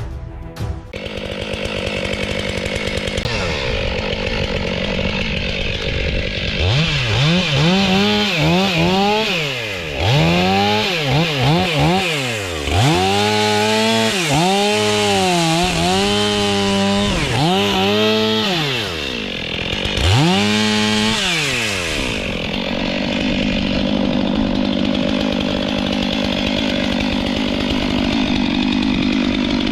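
STIHL MS 500i chainsaw running. Its pitch rises and falls over and over from about a quarter of the way in to about three-quarters through as the throttle is worked, then it runs steadily again.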